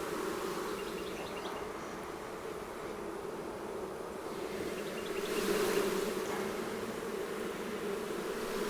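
Honeybees buzzing in a steady hum from an open hive, with a brief louder swell of noise a little past the middle.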